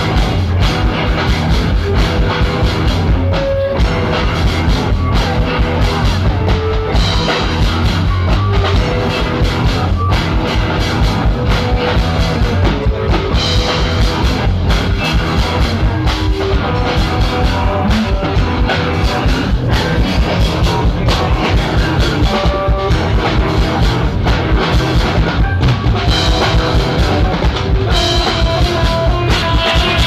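Live rock band playing loud through a large PA system: a drum kit keeping a steady, even beat under electric guitars and keyboard.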